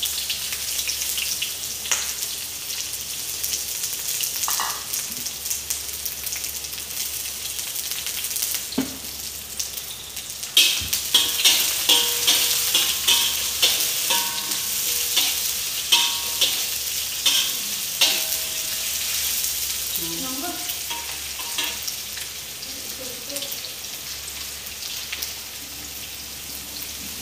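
Sliced onions and shallots sizzling steadily in hot oil in a wok. For several seconds in the middle, a spatula scrapes and knocks against the wok about twice a second as they are stir-fried.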